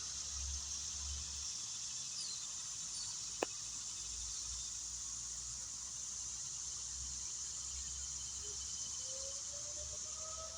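Steady high-pitched insect chorus, with one sharp click about a third of the way in. In the last two seconds an outdoor tornado warning siren starts to wind up, its tone rising.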